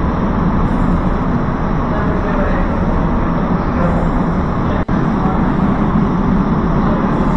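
Loud, steady machine noise from a running vertical-shaft hydroelectric turbine and generator. It cuts out for an instant about five seconds in.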